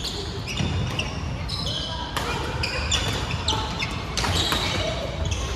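Badminton play on a wooden sports-hall floor: sneakers squeaking repeatedly in short high-pitched chirps as players move, with footfalls and sharp racket hits on the shuttlecock.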